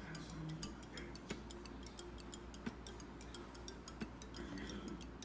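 Quiet background music with a quick, light ticking beat like a clock, over a few soft held notes.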